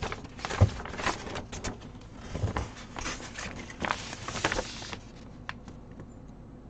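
Handling of a cross stitch kit's plastic packaging and large printed paper pattern sheet: crackling and rustling as the sheet is unfolded, with a few soft knocks, the loudest about half a second in. The handling dies down about five seconds in, leaving only a few faint clicks.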